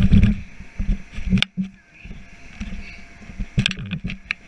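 Thumps, knocks and rubbing on an inflatable bounce house's vinyl as a child crawls with the camera in hand, heaviest at the start, with a sharp knock about a second and a half in. Under it runs the steady hum of the bounce house's air blower.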